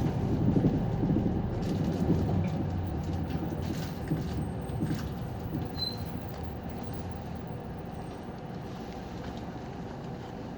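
City bus heard from inside the cabin, its engine and road noise dying away as it slows to a stop, then settling into a low, steady idle. A few faint clicks come about halfway through.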